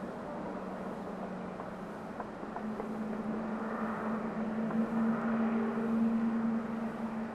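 Distant electric train running along the line: a steady hum that swells in the second half.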